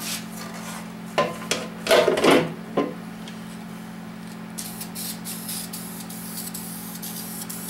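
A few loud knocks and clatter of metal parts being handled on the bench. From a little past halfway comes a run of quick, sharp, hissy strokes from an aerosol spray can, over a steady low hum.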